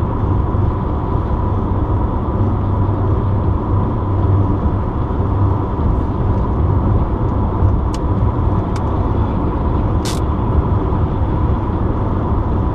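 Steady road and engine noise of a car at highway speed, heard from inside the moving car, a deep even drone with a faint steady whine. A couple of faint ticks, then a short sharp click-hiss about ten seconds in.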